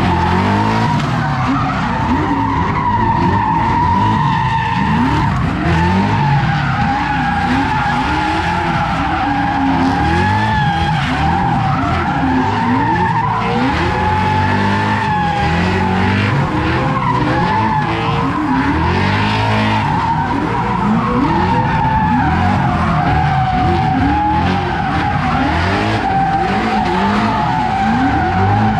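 A car doing a burnout: the tyres squeal in a steady high howl while the engine is revved up and down again and again.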